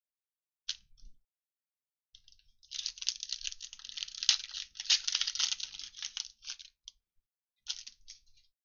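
Trading-card pack wrappers being torn open and crinkled by hand. There are a couple of short crackles, then about four seconds of dense crinkling, then a short burst near the end.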